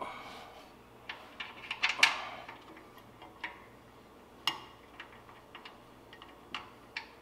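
Light metal clicks and clinks of a nut and washers being handled and threaded by hand onto a bolt on a mower's steel counterweight, with the loudest, briefly ringing clink about two seconds in.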